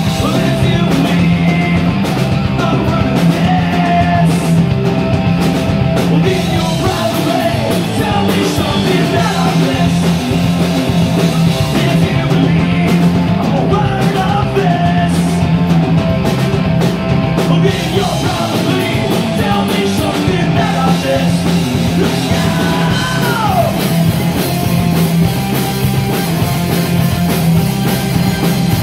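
Live punk rock band playing: electric guitar, bass guitar and drum kit, with a singer shouting and singing over them.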